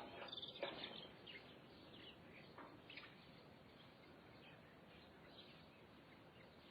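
Faint birdsong in open countryside: scattered short chirps and calls from small birds over a steady background hiss, with a few louder calls in the first second.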